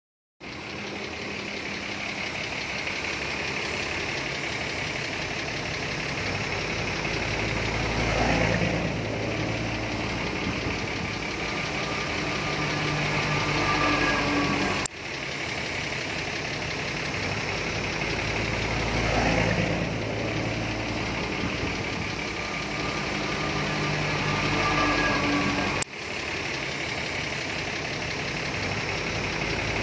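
Diesel engine of a small Shantui crawler bulldozer running steadily, swelling louder about every five seconds. The sound breaks off with a click twice, about halfway and a few seconds before the end.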